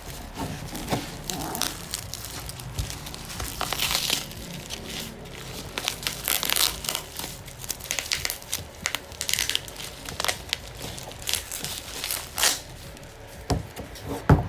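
Packaging being crinkled and torn open by hand in irregular rustles, with a sharp knock near the end.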